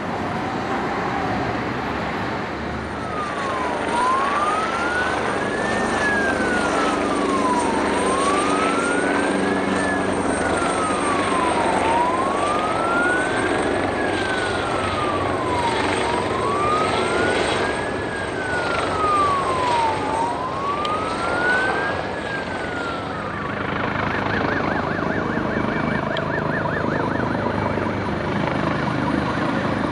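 A siren wails with its pitch rising and falling in slow sweeps about every four seconds, then switches to a rapid warble near the end. Underneath is the steady noise of a Japan Coast Guard AgustaWestland AW139 helicopter flying.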